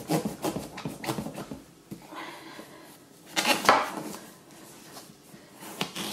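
Serrated kitchen knife sawing through a large marrow's tough skin and dense flesh: quick rasping strokes for about two seconds, then one louder, longer stroke about three and a half seconds in, and fainter scraping after.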